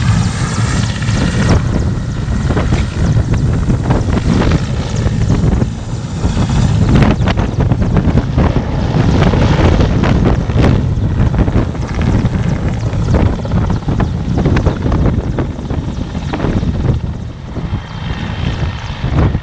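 Mi-8 transport helicopter lifting off and flying away: loud, steady turbine and rotor noise, a little quieter near the end as it moves off.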